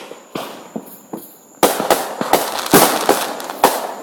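Fireworks going off: a few scattered bangs, then about a second and a half in a sudden rapid string of loud cracks and bangs.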